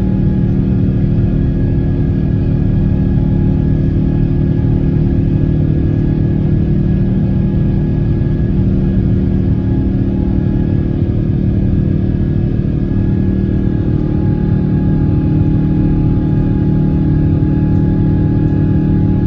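Steady engine and air noise inside the cabin of an Airbus A350-1000 climbing after take-off, from its Rolls-Royce Trent XWB engines. It is a heavy low hum with a few held steady tones in it.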